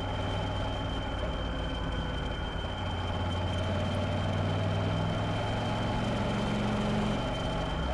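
Motorcycle engine running at a steady road speed with wind and road noise, its note shifting a little with the throttle. A steady high whine runs underneath.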